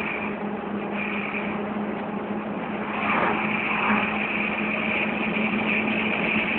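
Vehicle driving along a road: a steady engine hum with road noise, growing a little louder about three seconds in.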